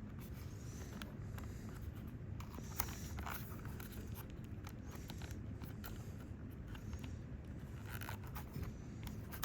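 Hands working at unboxing packaging: scattered small clicks, scrapes and rustles over a steady low background rumble.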